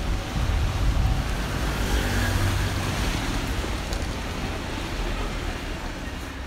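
Road traffic on a rain-wet city street: tyres hissing on the wet asphalt with a low rumble of engines, fading steadily toward the end as a vehicle passes and moves away.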